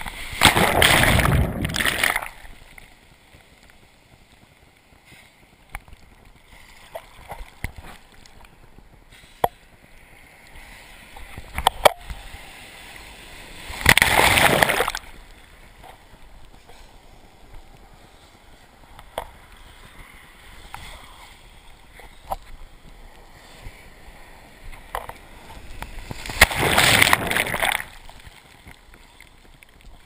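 Ocean surf sloshing and splashing around a camera held at the water's surface, with small splashes throughout. Three loud rushes of whitewater come at the start, about halfway through and near the end, each lasting a second or two.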